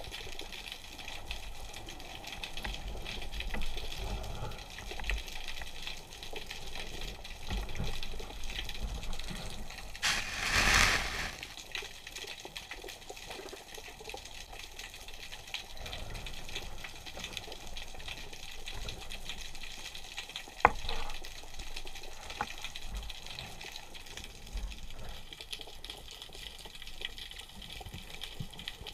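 Underwater ambience picked up by a camera below the surface: a low, uneven rumble of moving water with a faint hiss. About ten seconds in there is a loud rushing swirl of water lasting a second or so, and about twenty seconds in a single sharp click.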